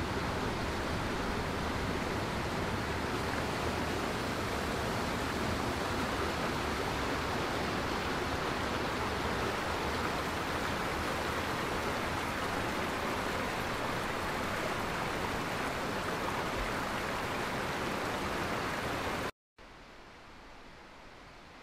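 Mountain stream rushing over boulders: a steady, loud rush of water that cuts off about nineteen seconds in. After a brief dropout, much quieter outdoor background follows.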